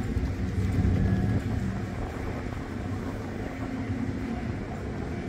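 Low rumble of a motor vehicle passing on a city street, loudest in the first second and a half, then settling into a steady traffic drone.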